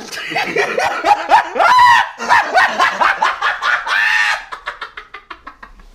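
A man laughing loudly in repeated bursts that glide up in pitch, breaking down into short quick breathy pulses that fade out near the end.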